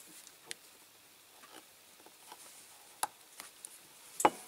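Small clicks and ticks of a diecast model car being handled and worked on between the fingers, with a few scattered clicks and the sharpest one just before the end.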